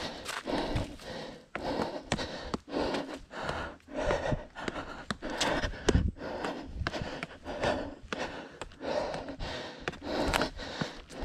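A runner's heavy panting, close to a chest-mounted microphone, about two breaths a second, with footfalls on the trail.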